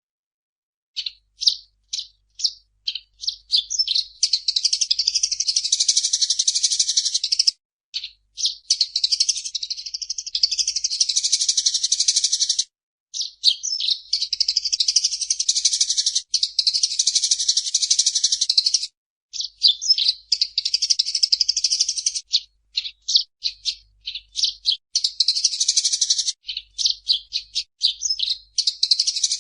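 Sparrow chirping: separate sharp chirps about a second in, building into long bouts of rapid, continuous high-pitched chattering with brief pauses between them.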